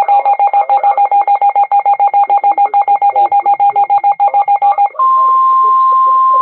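Electronic weather-alert tones: a rapid train of beeps, about eight a second, with a warbling higher tone over them. About five seconds in this switches to a steady single-pitch tone near 1 kHz, the NOAA Weather Radio warning alarm tone that comes before a new warning message.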